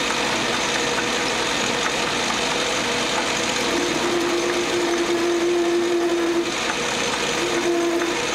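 Metal lathe running while a twist drill in the tailstock chuck drills out the middle of a rusty metal exhaust manifold spacer spinning in the four-jaw chuck. A steady whine from the cut comes in a little before four seconds in, breaks off, and comes back briefly near the end; the drill is struggling to cut the part.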